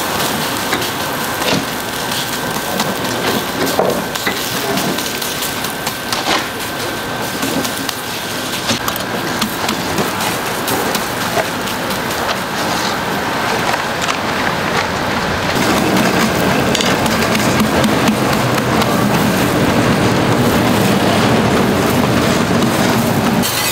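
Korean pancakes (jeon) sizzling in oil on a flat griddle, with scattered clicks and knocks of a spatula or turner. The sizzle grows fuller about two-thirds of the way through.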